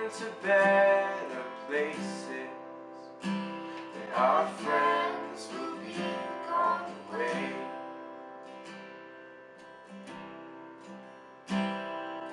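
Acoustic guitar strummed in chords. Over the last few seconds the chords are left to ring and fade, then a sharp, loud strum comes in near the end.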